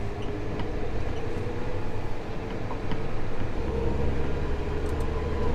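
Tractor engine running steadily, a low drone with a steady whine above it, growing a little louder a little past halfway.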